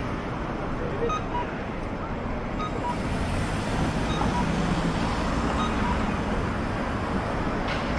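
Steady city street traffic noise as cars drive past a crossing, with a low engine hum that grows stronger in the middle.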